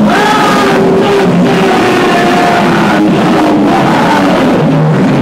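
Loud live noise music: a dense wall of harsh, distorted noise with several wavering tones sliding slowly downward through it, and a lower steady tone settling in near the end.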